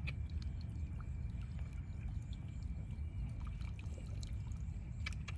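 Water sloshing and splashing, with scattered small splashes and drips over a steady low rumble.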